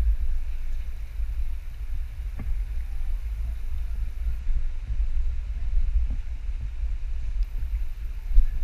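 Steady low rumble and faint hiss of an indoor swimming-pool hall, with a few faint knocks.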